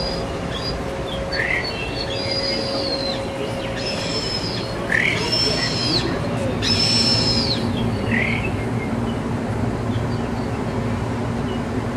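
Bird calls: several clear whistled notes, some arching and some sweeping upward, repeating every second or two over a steady background hum.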